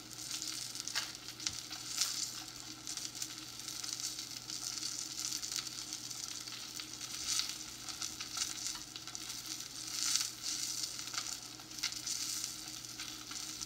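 Salmon searing in oil in a hot non-stick frying pan: a steady sizzle with scattered pops and crackles.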